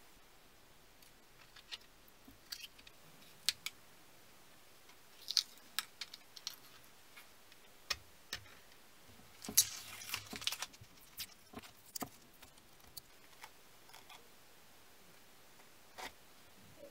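Snap-off utility knife blade scraping paint off a machined face of a painted tailstock casting, heard as scattered short scrapes and clicks, with the busiest run of scraping about ten seconds in.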